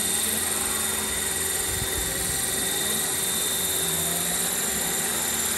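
Radio-controlled scale model helicopters, the loudest a large Black Hawk model hovering low, running with a steady whine over the noise of the rotors.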